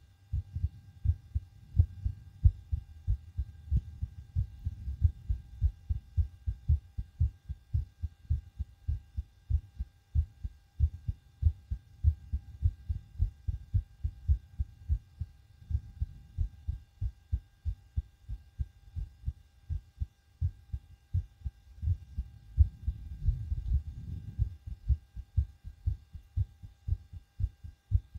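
A person's heartbeat picked up through a homemade stethoscope microphone on the chest: a fast, regular run of low thumps, about two to three a second, the heart still working hard after backflips on a trampoline.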